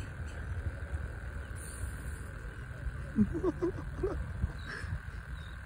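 Wind rumbling on the microphone at the shoreline, with a faint steady high hum over it. About three seconds in, a brief run of short pitched calls sounds.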